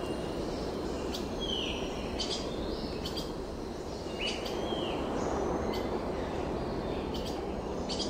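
Forest ambience: songbirds chirping in short high notes, with a couple of downward-sliding calls, over a steady background rush.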